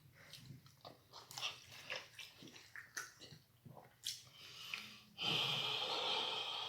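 Close-miked chewing and smacking of food, many short wet mouth clicks. About five seconds in comes a louder drawn-out breathy sound lasting over a second.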